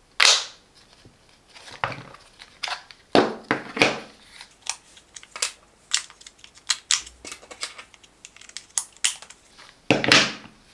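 Plastic clicks and scrapes from handling a small plastic laser level while its battery compartment is opened and a battery is fitted: many short, sharp clicks with a few longer scraping sweeps, one near the start and one near the end.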